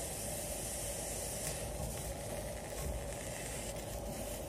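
Husked corn cobs sizzling steadily on a hot ridged griddle as they roast.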